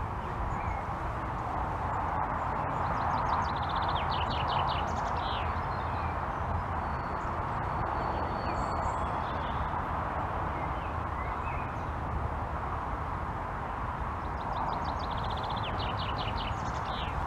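Distant steam locomotive approaching along the line, heard as a steady far-off rumble with faint rhythmic beats. A songbird sings a quick descending phrase twice over it.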